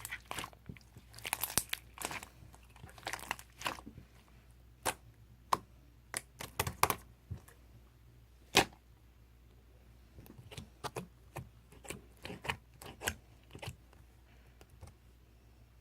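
Close, irregular crackling and crunching sounds: sharp clicks and short crinkles, thicker in the first few seconds and sparser later, with one loud click about eight and a half seconds in.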